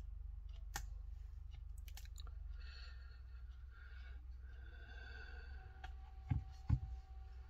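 A plastic opening tool being pried into the back-cover seam of a Samsung Galaxy Tab S2: scattered sharp clicks and a faint creak in the middle, then two dull knocks near the end, over a low steady hum.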